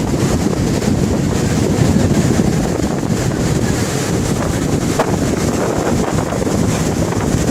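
Rushing floodwater giving a loud, steady rush, with wind buffeting the microphone.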